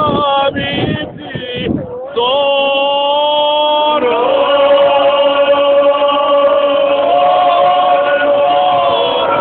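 A group of voices singing an unaccompanied traditional folk song with long held notes, starting about two seconds in after a moment of talk.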